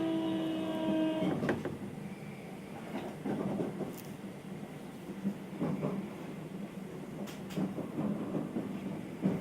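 Keio new 5000 series train's Hitachi SiC VVVF inverter whine, heard inside the passenger car, cuts off abruptly about a second in. After that the car goes quieter, with soft irregular sounds every couple of seconds and a few faint clicks.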